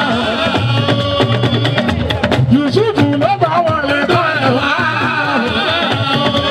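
Fuji music played live: a lead singer's winding, ornamented vocal line over steady drums and percussion.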